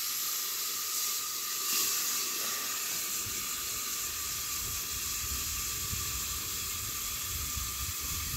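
Steady hissing and sizzling of steam from a pot of dal boiling on a wood fire, just after the hot tempering (tadka) has gone in. A low rumble joins about three seconds in.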